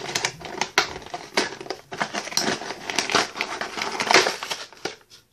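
Stiff clear plastic blister packaging of a toy crackling and crinkling in irregular bursts as it is squeezed and pried open by hand.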